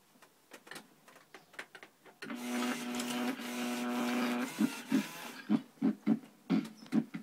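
Gemmy animated monster prop's internal motors and gears whirring and clicking as it moves its head, arms and eyelids, with a steady whir in the middle and clicks before and after.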